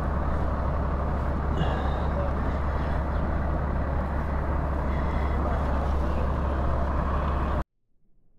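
Steady low rumble of motor-vehicle noise, which cuts off abruptly near the end.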